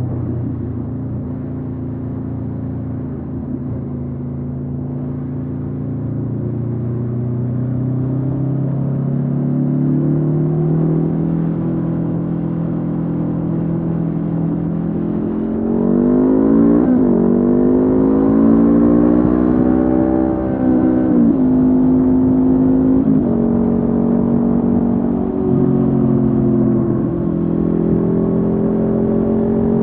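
Honda CB500F's parallel-twin engine through a Mivv GP Pro aftermarket exhaust, under way. It runs steady and low at first and climbs slowly, then from about halfway the note rises and drops sharply several times.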